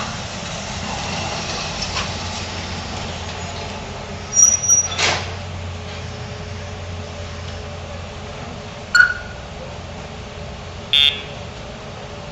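Steady low traffic hum with a few short, sharp sounds: a high squeak and clatter about four seconds in, a brief chirp about nine seconds in, and a short electronic-sounding beep near the end.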